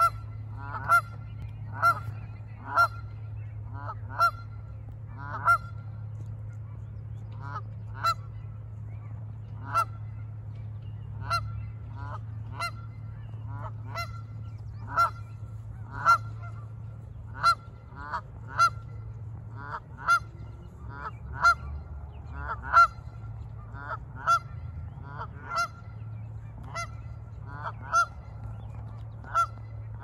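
Canada geese honking over and over, single honks at irregular intervals about a second or two apart, over a steady low rumble.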